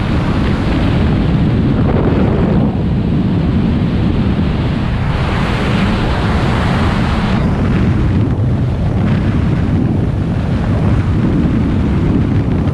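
Freefall wind rushing over a skydiver's camera microphone during a tracking dive: loud, steady buffeting that swells and eases every few seconds.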